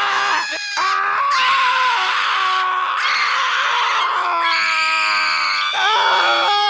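A string of loud, high-pitched human screams, one after another, each held for a second or more. There is a brief break about half a second in, and one scream past the middle wavers in pitch.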